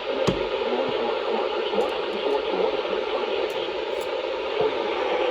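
Weather radio receiver with poor reception: steady static hiss, with a faint, garbled broadcast voice wavering underneath. A sharp click comes just after the start.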